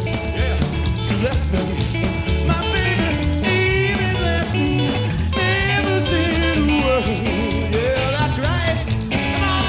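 A rockabilly trio playing live: slapped upright double bass, electric guitar and drums, with a steady driving beat.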